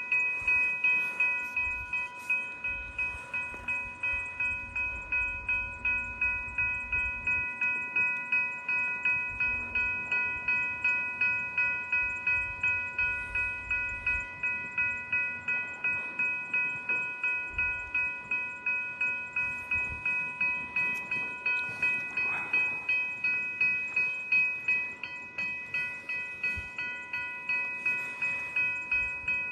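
Railway level-crossing bell ringing steadily, about two strikes a second. A train's low rumble runs under it for roughly the first half.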